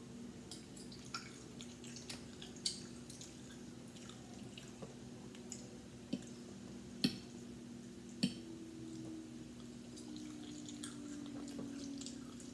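Close-miked chewing of a mouthful of scrambled eggs with cheese: soft wet mouth clicks and smacks come every second or so, a few a little louder, over a faint steady hum.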